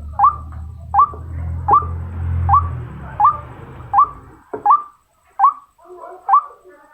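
Female white-breasted waterhen calling: a short, upward-hooked note repeated steadily about once every 0.8 seconds, nine times, the call a hen gives to draw a male. A low hum runs under the calls and stops about halfway through.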